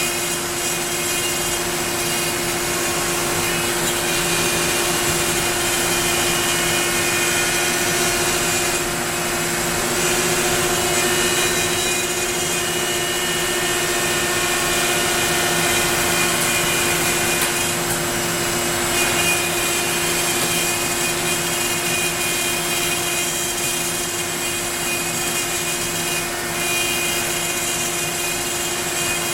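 Onefinity CNC router's spindle running steadily at high speed while its bit cuts wood, a constant whine over a dense cutting noise.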